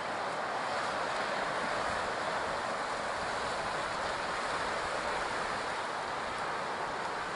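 Steady wash of ocean surf on a beach.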